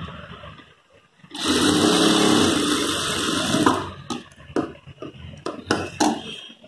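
Industrial sewing machine stitching a dart in cotton blouse fabric in one steady run of about two seconds, starting about a second in. A few light clicks and fabric rustles follow as the cloth is moved from under the presser foot.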